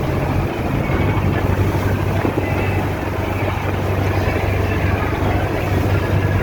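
Motorboat engine running steadily under way, a low even hum with the rush of water and wind over it.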